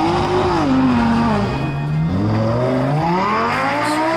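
Car engine revving: the pitch climbs to a peak about half a second in, drops back, then climbs slowly again toward the end. Music plays underneath.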